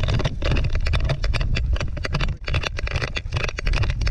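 Wind buffeting and knocking of a harness-mounted action camera on a running husky: a steady low rumble broken by many irregular knocks and scrapes.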